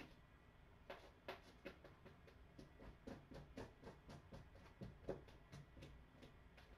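Faint, irregular soft clicks and rustles, a few a second, from newborn kittens shifting and climbing on fleece bedding.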